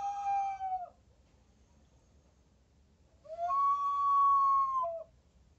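Ceramic Peruvian whistling vessel (huaco silbador) shaped as a dog, tilted so the water inside pushes air through its whistle. A steady whistled tone ends just before a second in. A second, longer tone starts about three seconds in, steps up in pitch and drops back down just before it stops.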